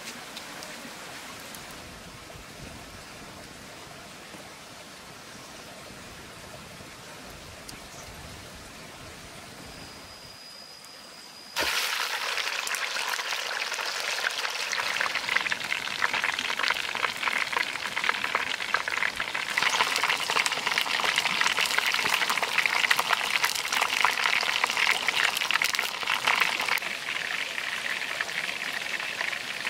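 Oil in a wok over a wood fire, fairly quiet at first; about eleven seconds in, a large whole fish goes into the hot oil and loud, dense sizzling and spattering starts suddenly and carries on, much like heavy rain.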